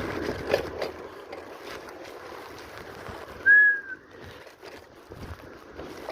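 Wind buffeting the microphone, with a few light clicks, and a single short high squeak, falling slightly, about three and a half seconds in.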